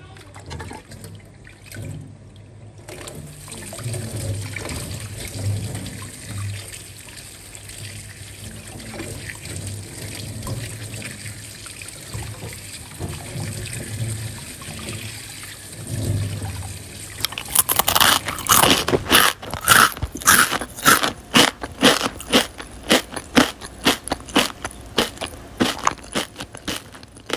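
Pickle brine trickling and dripping as the striped cucumber pieces are handled out of the jar. About two thirds of the way in it gives way to a long run of loud, rapid, crisp crunching clicks.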